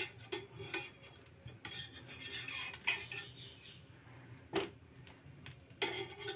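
A spatula scraping and clinking against a frying pan as toasting sandwiches are slid under, lifted and turned. There are a few sharp clinks, with a stretch of scraping about two seconds in.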